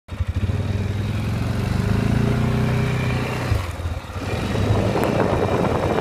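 An engine running steadily, dipping briefly about three and a half seconds in, then a rougher rushing noise.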